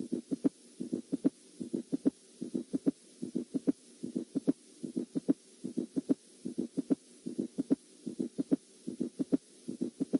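Recorded heart sounds from a stethoscope: short, low thuds of each heartbeat repeating in a steady rhythm, a little over one beat a second.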